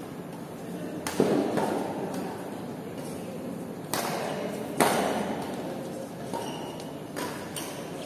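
Badminton rackets striking a shuttlecock during a doubles rally: about six sharp hits at uneven intervals, the loudest about a second in and just before five seconds, each ringing on in a large echoing hall.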